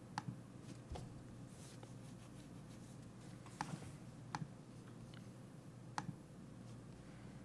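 Computer mouse button clicking a handful of times, spaced out, over a faint steady low hum.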